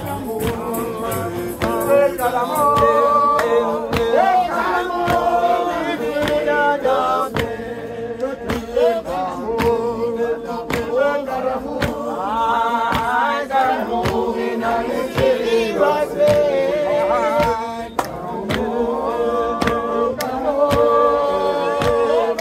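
A group of Jamaican Revivalists, men and women, singing a worship chant together without instruments, punctuated by sharp percussive hits.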